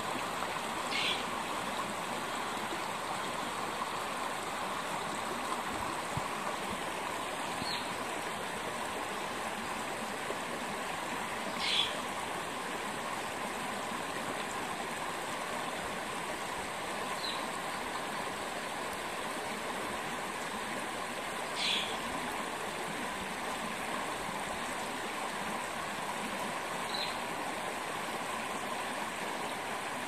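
Steady rush of flowing stream water, with a short high call that slides down in pitch repeating every five seconds or so.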